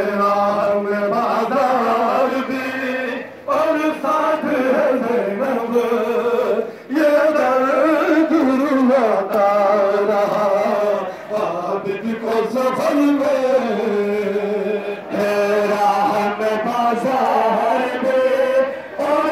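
Men's voices chanting a noha, a Shia mourning elegy in Urdu, amplified through loudspeakers, in long sung phrases broken by brief pauses.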